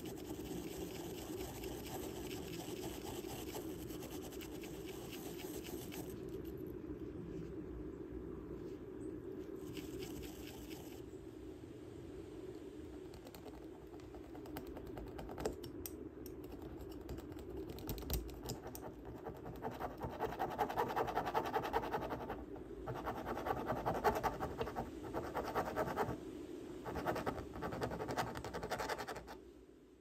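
A wire brush scrubbing a freshly fired fine silver piece on a steel bench block, a steady scratchy brushing that strips off the white binder layer. Later comes a hand burnishing tool rubbing the silver in uneven strokes, louder toward the end, to polish the details.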